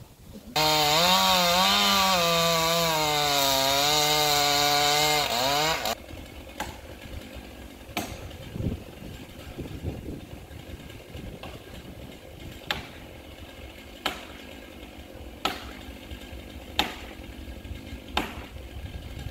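Chainsaw cutting eucalyptus at high revs, its pitch dipping and recovering as the chain loads in the cut, then cutting off about six seconds in. After that, quieter sharp knocks come about every second and a half.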